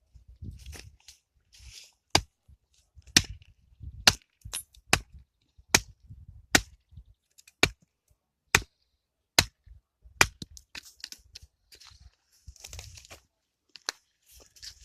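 An axe chopping firewood: about ten sharp strikes, roughly one a second, with softer knocks and rustling in between.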